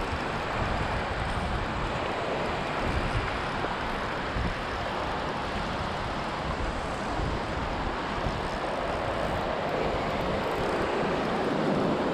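River rapids rushing steadily past, a broad, even roar of white water, with irregular wind buffeting on the microphone.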